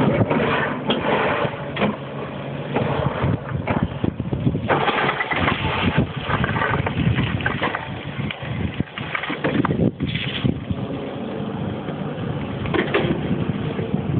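Komatsu PC340LC excavator's diesel engine running steadily, with irregular bursts of rough, clattering noise over it.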